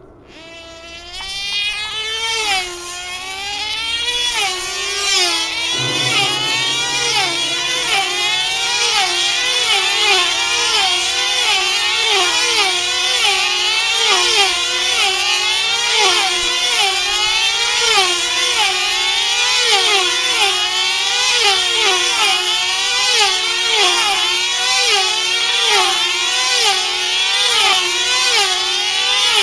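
Engines of F2C team-race control-line model aircraft, small 2.5 cc diesels, starting up and then running flat out as the models circle the pilots. The high-pitched note rises and falls in a steady cycle about every second and a half, once per lap, and grows louder over the first few seconds.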